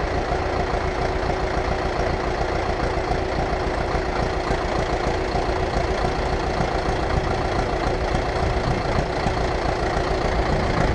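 Farm tractor diesel engine idling steadily.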